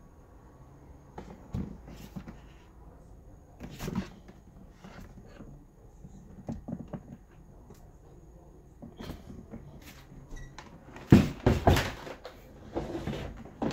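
Scattered plastic knocks and clatters from a plastic storage-tote generator box being handled, with the loudest cluster of knocks near the end as its hinged top panel is shut and pressed down.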